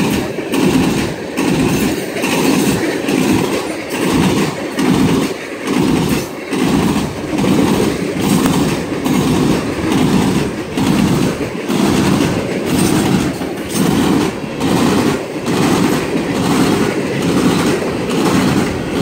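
Freight cars of a manifest train, mostly tank cars, rolling past: steel wheels clattering over the rails in a steady rhythmic beat, about three beats every two seconds.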